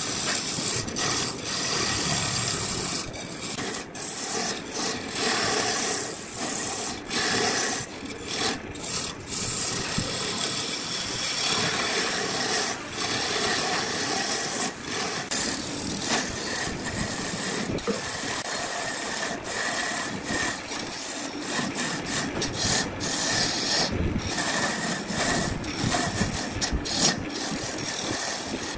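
Hand-held turning tool cutting a spinning wooden blank on a lathe: a continuous rasping shave of wood, broken by many short dips as the cut lightens or the tool lifts.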